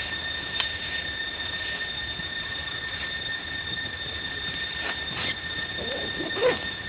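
A steady high-pitched whine over a light hiss, with a few faint clicks, and a short wavering squeak near the end.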